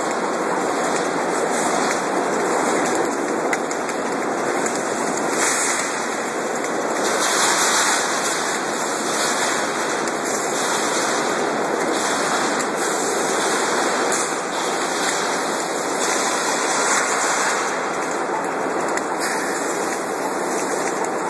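Concrete spun pile cage welding machine at work: a steady, even hissing noise of the welding and machinery.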